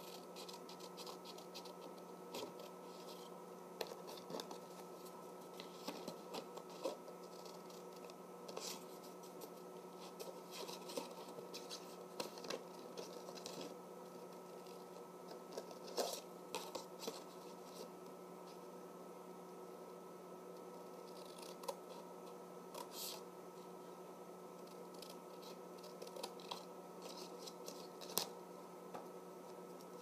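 Scissors cutting a triangle out of a paper plate: faint, irregular snips and clicks with short pauses between cuts. A faint steady hum runs underneath.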